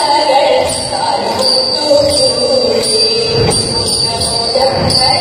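Thiruvathira kali song: women's voices singing with a regular jingling beat.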